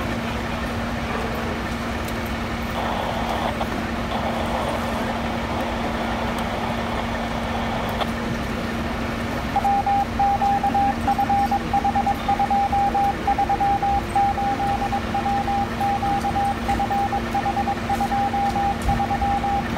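Idling fire apparatus make a steady hum with street noise. About halfway in, a loud, high electronic beeping starts and pulses rapidly, roughly two to three beeps a second.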